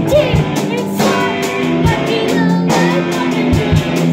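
A small band playing a song live: keyboard, electric guitar and drum kit together, with a singing voice over them.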